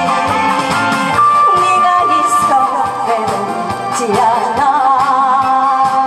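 A singer singing a Korean song live into a microphone over instrumental accompaniment with a steady beat, the voice wavering with vibrato on held notes in the second half.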